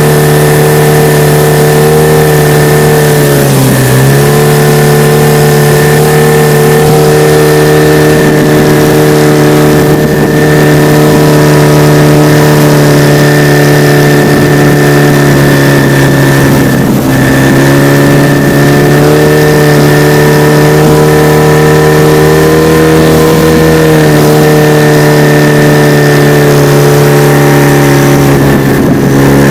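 HDX F 9.8 BMS two-stroke outboard motor running steadily at speed, its pitch dipping briefly three times. A steady high-pitched squeak, like a cricket's chirp, sits over the engine note. The owner hears this squeak at 3800-4500 rpm and suspects it comes from the lower leg or driveshaft housing rather than the powerhead.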